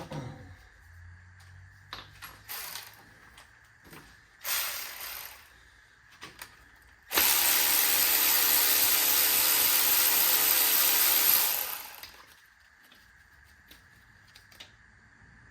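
Power tool running steadily for about four and a half seconds, starting about seven seconds in, during engine teardown work on a 5.7 Hemi. Before it come light clicks and scrapes of metal parts being handled, and two short rushing bursts.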